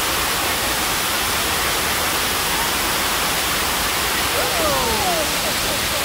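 Waterfall plunging into a pool: a steady, loud rush of falling water.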